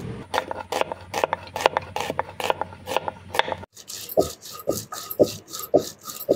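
Rhythmic scraping strokes, about two to three a second. The pattern changes abruptly a little under four seconds in to a second run of strokes with a thin ringing note between them.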